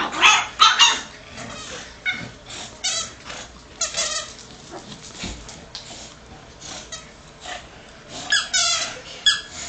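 Squeaky dog toy squeaking as a bulldog chews it: short, high squeaks in irregular clusters, loudest near the start and again near the end.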